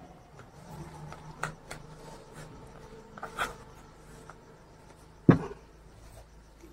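Screw cap being twisted onto a plastic bottle, with small clicks and scrapes, then a single thump a little past five seconds in as the bottle is set down on the table.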